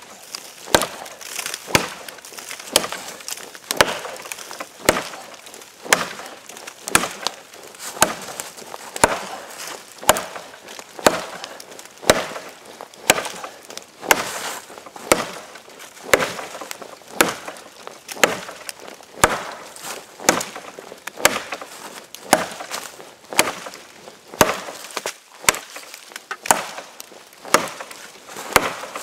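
Mini parang chopping into a frozen ash branch: sharp blade-into-wood chops at a steady rhythm of about one a second, with small chip and splinter clicks between strikes.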